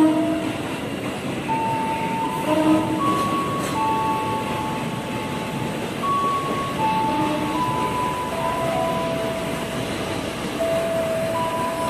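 Kereta Ukur Jalan Rel (track-recording train) rolling slowly into the platform and coming to a stop, with a run of steady whistling tones that shift pitch every second or so over the running noise.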